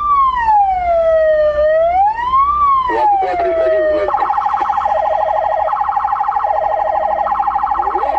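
Police car siren wailing, a slow rise and fall, switching about four seconds in to a rapid warble.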